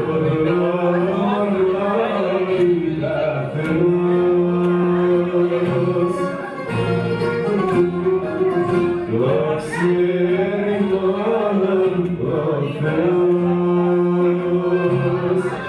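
Music: a voice singing long, wavering held notes in phrases of a few seconds, over a plucked-string accompaniment.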